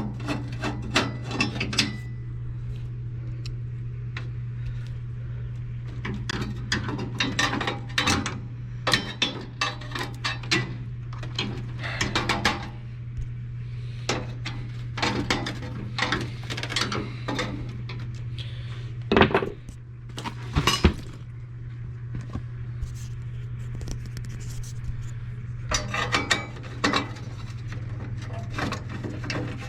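Metal tools and parts clinking and knocking in irregular bursts as a flame sensor is taken out of a gas furnace's burner assembly, with two louder knocks about two-thirds of the way through. A steady low hum runs underneath.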